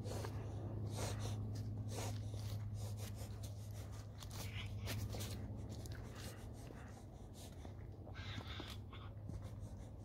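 Footsteps crunching through dry twigs and leaf litter on a forest floor, one or two steps a second, thinning out after about six seconds, over a steady low hum.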